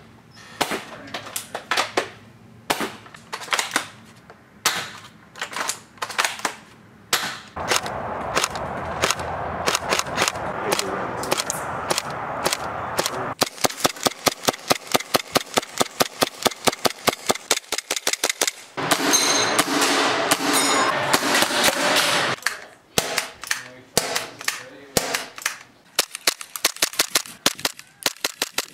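Airsoft replica guns firing one after another, a series of different guns including a bolt-action sniper rifle and pistols. Sharp single shots with short gaps, then a fast, even string of shots, about nine a second, lasting several seconds, then single shots again.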